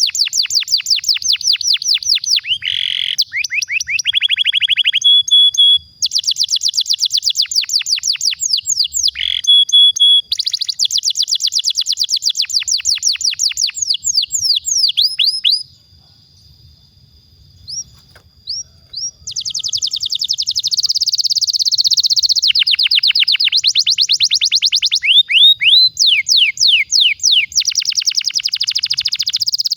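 Domestic canary singing long rolling trills: runs of rapid, evenly repeated falling notes with a few lower held notes. About halfway through it pauses for a few seconds, with only a few scattered notes, then starts trilling again.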